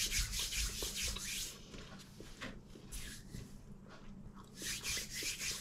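Chewing a mouthful of buttered homemade bread with a crisp crust, close to the microphone, in irregular bursts of scratchy noise.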